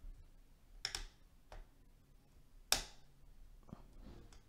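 A few light, sharp clicks and taps of a small screwdriver and the developer screw being handled over a laptop's opened case and motherboard, the loudest about two-thirds of the way through.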